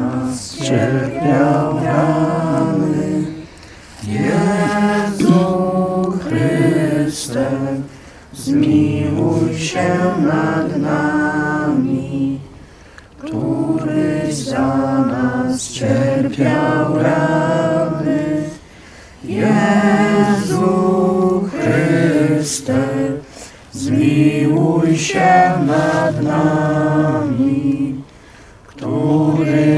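A group of people singing a hymn unaccompanied, in sung lines of a few seconds each with short pauses between them.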